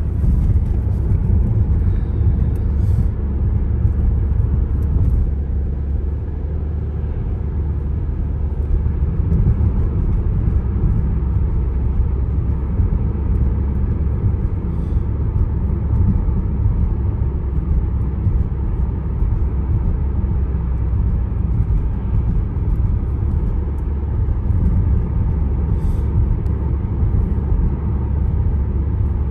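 Car driving at steady speed: a continuous low rumble of engine and tyre road noise.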